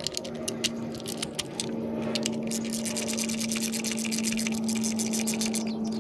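Hand ratchet with a 10 mm socket on an extension clicking rapidly as the new ignition coils' hold-down bolts are run in and tightened. The clicks are scattered at first, then come fast and continuous from about two seconds in until near the end. A steady hum runs underneath.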